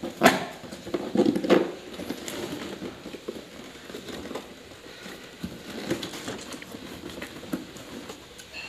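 Cardboard and paper packaging of a WPL D12 RC truck box rustling, scraping and tapping as it is handled and opened, with a sharp knock shortly after the start and a burst of louder crinkling around a second and a half in.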